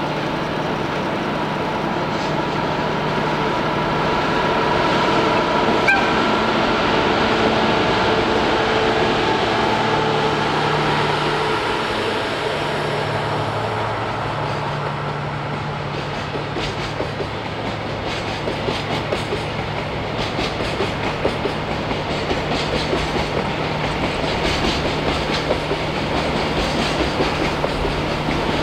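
Diesel train passing on an unelectrified line: a steady engine drone, joined from about halfway by the rhythmic clickety-clack of wheels over the rail joints as a long line of cars goes by.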